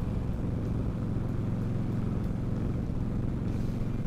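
Indian Scout Sixty's V-twin engine running steadily at cruising speed on the open road, with no change in revs.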